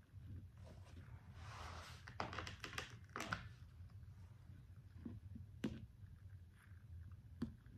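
Faint handling of craft materials by hand: a brief rustle about a second and a half in, then a quick run of small clicks and taps, and two sharp single taps later on, over a steady low hum.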